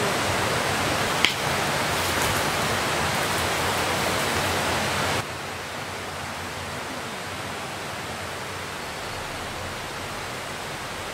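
Steady rush of flowing stream water, dropping sharply in level about five seconds in. A brief click sounds a little over a second in.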